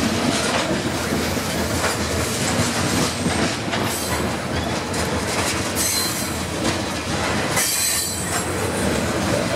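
Covered hopper cars of a freight train rolling past close by: a steady rumble and clatter of steel wheels on the rails, with brief high-pitched wheel squeals about six and eight seconds in.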